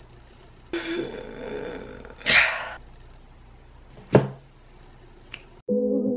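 A woman's wordless vocal sounds: a drawn-out groan, then a loud breathy sigh, and a short grunt just after the four-second mark. Music with sustained tones cuts in abruptly near the end.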